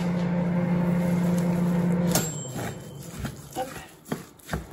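A steady low electrical hum from a kitchen appliance cuts off with a click about two seconds in. After it come scattered knocks and scrapes of a spatula mixing grated cheese into a vegetable mixture in a glass bowl.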